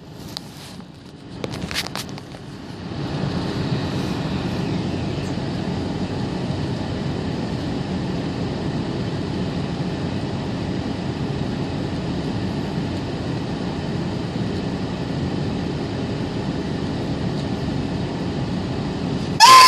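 Car running, with a steady rush of engine and road noise inside the cabin that sets in about three seconds in. A person starts screaming at the very end.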